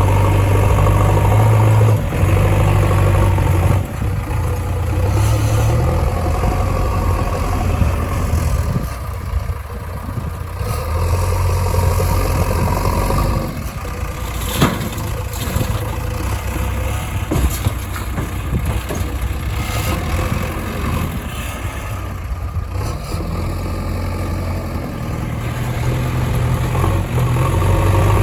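Diesel engines of a backhoe loader and tractors running, the engine note swelling and easing with the work load, with scattered clanks and one sharp knock about halfway through.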